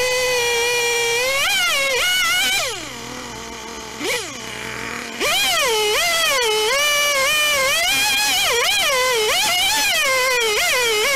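Gas chainsaw cutting through a log at high revs, its pitch dipping and recovering as the chain bogs in the wood. About two and a half seconds in, the throttle is let off and the engine winds down and goes quieter. It blips once, then goes back to full throttle a little after five seconds and carries on cutting.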